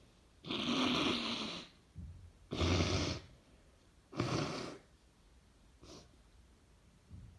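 A congested nose being blown hard three times in noisy blasts of about a second or less, then two faint sniffs. The sound is a person with a head cold clearing blocked sinuses.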